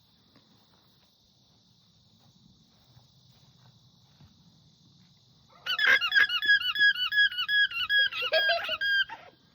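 Alpaca alarm call: a loud, rapid string of high-pitched squeaky calls, about four a second. It starts a little over halfway through and lasts about three and a half seconds. It is the alarm an alpaca gives to warn the herd of danger.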